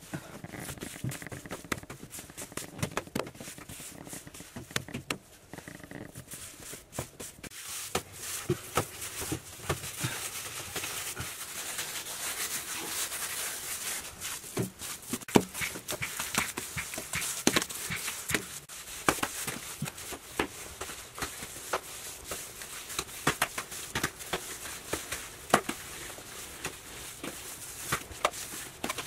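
Hands kneading and slapping a heap of wet mud, with irregular squelches and sharp clicks. A steady hiss joins from about eight seconds in.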